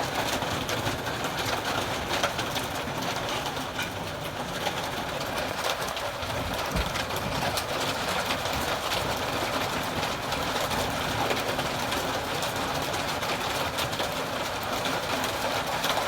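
Steady rain falling, an even rushing hiss, with a few faint ticks in it.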